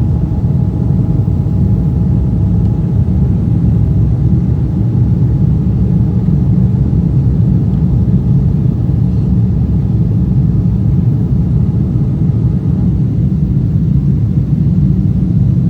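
Steady low rumble of a Boeing 777-300ER's GE90-115B engines and airflow, heard inside the passenger cabin, with a faint whine that fades in the first few seconds.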